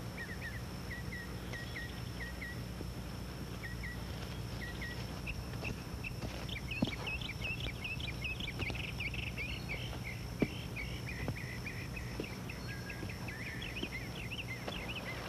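Small birds chirping in short repeated calls, sparse at first and busier after a few seconds, over a steady high insect trill and a low hum. Two sharp clicks stand out.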